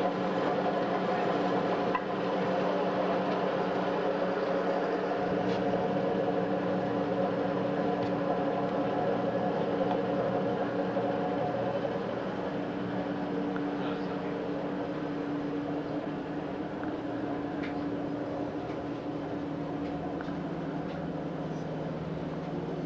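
Vintage laundry machine's electric motor running with a steady hum, getting a little quieter about halfway through, with a few faint ticks.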